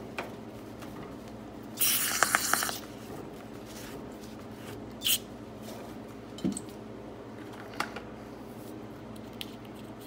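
A hissing spray burst about a second long, with small clicks inside it, and a second short hiss around five seconds in, while a lever arm shock is being cleaned out. Scattered small clicks and knocks of parts being handled come between them.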